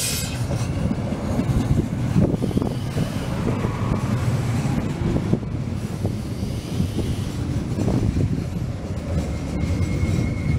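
DB class 628 diesel multiple unit passing close by: the engine rumbles under the clatter of the wheels on the rails, with irregular knocks over the rail joints.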